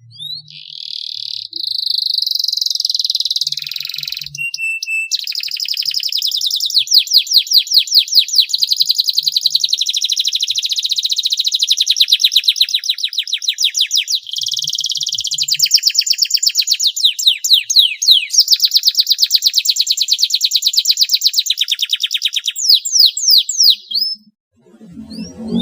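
Domestic canary singing a long, almost unbroken song of fast trills: quick runs of repeated high, sweeping notes, changing from one trill to the next, with only brief breaks.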